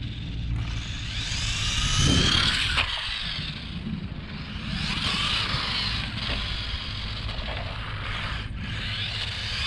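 Traxxas 1/16 Slash brushed electric RC truck driving on concrete: its motor and drivetrain whine rises and falls with the throttle in three runs, the last near the end.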